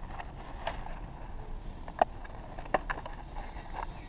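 Clear plastic clamshell packaging being handled and pulled open: light crinkling with a few sharp plastic clicks, the loudest about two seconds in and again a moment later.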